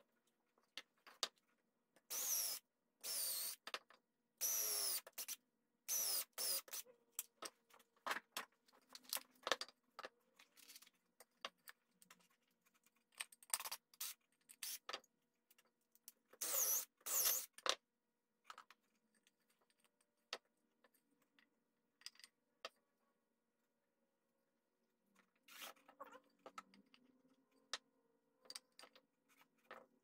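Wooden boards and blocks being shifted and slid about on a wooden workbench: a series of short scraping sounds, each under a second, with lighter knocks and clicks between them.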